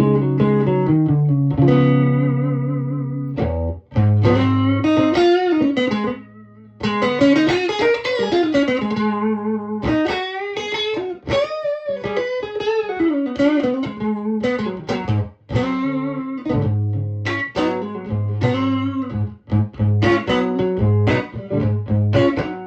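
Electric guitar, a Fender Custom Shop Stratocaster with Fralin pickups, played through a Victoria 35310 tweed Bandmaster-clone tube amp with three 10-inch Jensen P10R speakers, guitar volume at 9. Ringing chords come first, then bluesy single-note lines with string bends, broken by short pauses.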